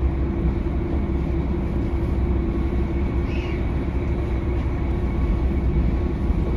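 Cabin sound of a JR Hokkaido KiHa 201 series diesel railcar rolling slowly into a station: a steady low rumble with a constant hum. A short high squeak comes about three seconds in.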